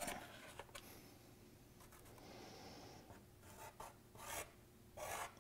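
Felt-tip marker drawing lines on cardboard: faint scratchy strokes, a longer one about two seconds in and several short ones after it.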